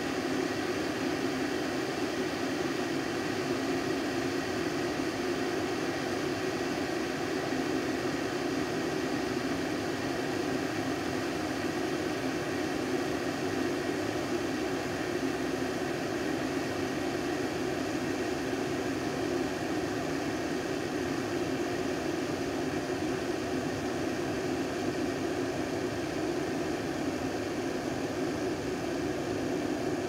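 Water boiling in a glass electric kettle: a steady rushing noise of bubbles forming on the heating plate, with no change in level.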